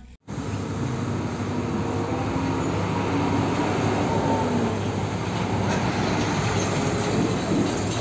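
Large Hino fuel tanker truck driving past close by: steady engine and tyre noise that starts abruptly just after the start.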